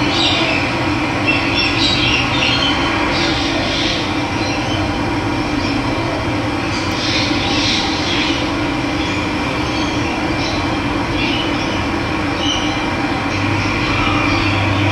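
Running water with a steady rushing sound, while birds chirp in short bursts now and then over it.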